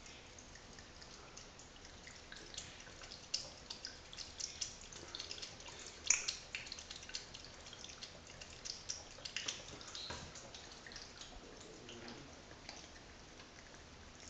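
A thin stream of water trickling and dripping from a bath tap into the tub, broken up by a cat lapping at it: a run of small irregular splashes and clicks, busiest in the middle, with one louder splash about six seconds in.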